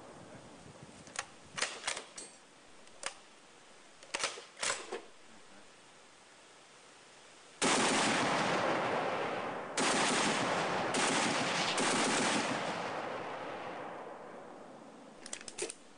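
Browning M2 .50 calibre heavy machine gun firing armor-piercing incendiary tracer in single shots and short two- and three-round bursts, sharp cracks spread over the first five seconds. About halfway through, a loud rushing noise starts suddenly and slowly fades.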